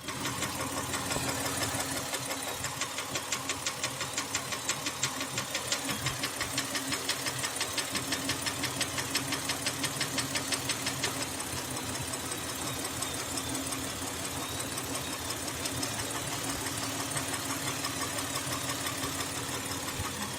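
Hyundai Santa Fe engine running with a regular knock, several beats a second, most distinct during the first half and then blending into the steady running.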